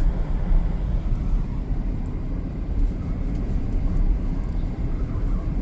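Steady low road rumble of tyres and engine heard from inside the cabin of a moving Ford Edge SUV.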